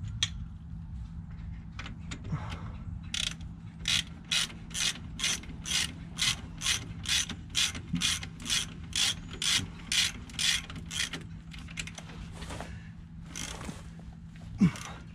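Hand ratchet wrench turning a brake caliper bolt back into a trailer disc brake, ratcheting in a steady rhythm of about two strokes a second. This is followed by a few irregular clicks and one sharp click near the end.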